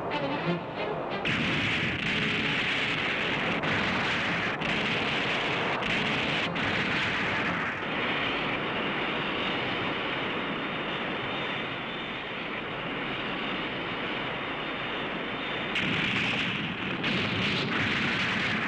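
TV special-effects explosion and eruption sounds: a dense, continuous rumbling blast noise broken by sharp cuts. Around the middle it settles into a steadier rumble, and the heavier blasts return near the end.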